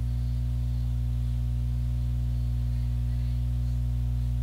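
A steady low electronic hum made of several fixed low tones that never change in pitch or loudness.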